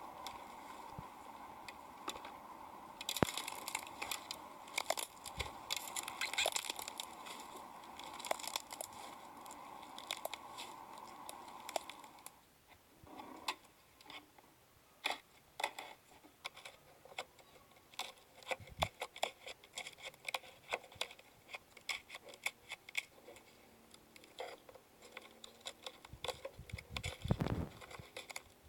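Slime being squished and poked by hand, making irregular sticky clicks and pops. A steady background hum stops about twelve seconds in.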